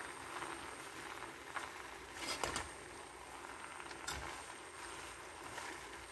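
A metal spoon stirring grated carrot and sugar in a pot, scraping against the pot a few times over a steady low hiss.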